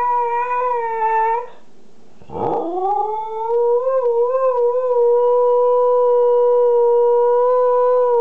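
Siberian husky howling: one long howl ends about a second and a half in, then after a short pause a second howl swoops up and holds a steady pitch.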